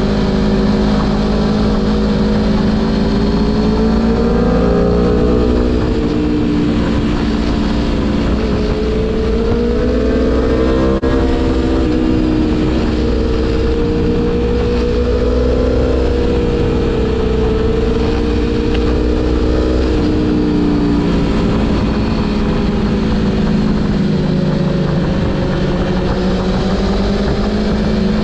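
Aprilia Tuono V4 Factory motorcycle engine under way, its pitch rising and falling repeatedly as the rider opens and closes the throttle, with a steady low rumble beneath it.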